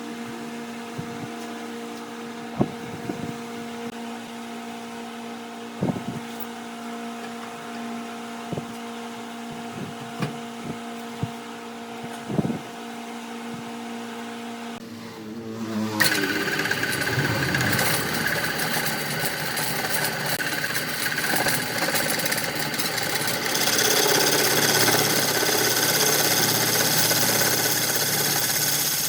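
Woodworking machinery, likely a wood lathe: a motor runs with a steady hum, broken by scattered sharp clicks. About halfway through, the sound dips briefly, then turns into a louder, rougher machine noise.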